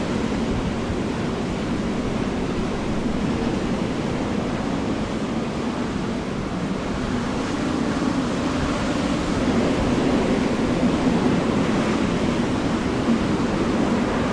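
Strong storm wind rushing over the microphone, a steady noise that grows somewhat louder about two-thirds of the way through.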